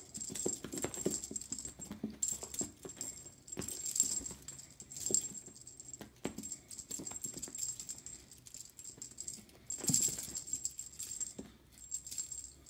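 Feather wand cat toy jingling and rattling in repeated bursts as it is swung and batted, the loudest burst about ten seconds in, with scattered clicks and soft thumps of the cat's pounces on carpet.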